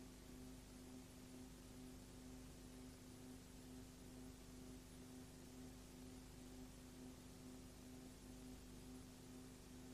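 Near silence: a steady low hum with faint hiss that does not change.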